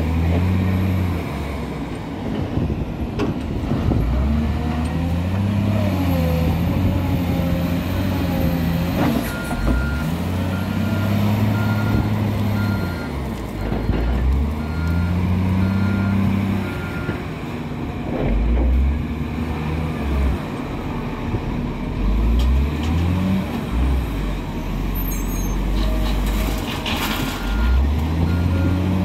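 Caterpillar 966H wheel loader's diesel engine revving up and easing off over and over as it works, with a reversing alarm beeping for stretches and a few short hisses of air.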